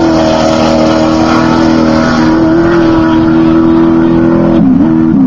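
Off-road race vehicle's engine running loud at steady high revs. Near the end its pitch dips and rises a few times as the revs change.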